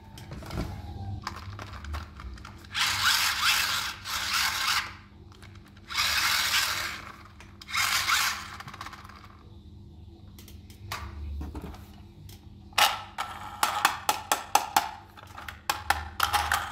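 Plastic toy trains handled in a cardboard box. In the first half there are several one- to two-second bursts of plastic scraping and rattling. Near the end comes a quick run of sharp clicks and knocks.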